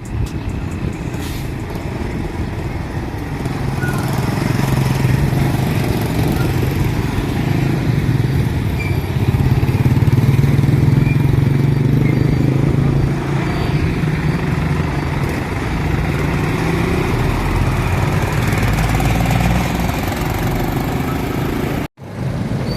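Diesel bus engine running close by, its low hum building over the first few seconds and then holding steady. The sound cuts out abruptly for an instant near the end.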